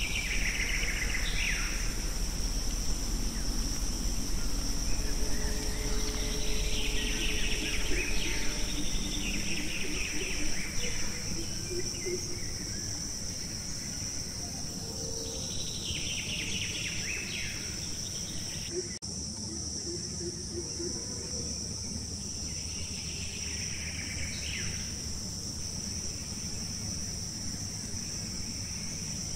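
Forest ambience: a steady, high-pitched drone of insects, with bursts of bird calls about four times, several seconds apart.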